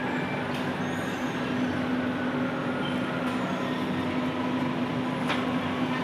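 A machine running steadily, with a constant low hum over a noisy rumble. A light click comes about half a second in and another near the end.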